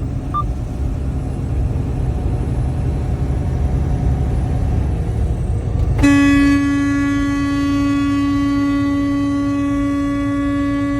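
Steady road rumble at highway speed, then about six seconds in a horn starts and is held in one long unbroken blast.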